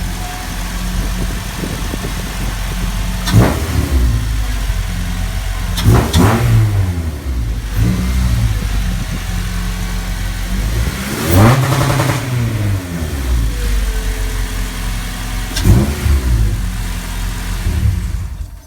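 Car engine idling through a Password JDM power chamber intake with a K&N cone filter, blipped four times, each rev climbing and falling back to idle. The sound cuts off suddenly at the end.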